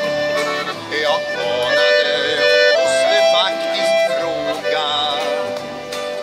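Chromatic button accordion playing the tune in an instrumental break between sung verses, with an acoustic guitar strumming chords underneath.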